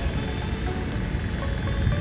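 Gusty wind rumbling on the microphone, with the steady drone of a small C186 Pro radio-controlled helicopter flying.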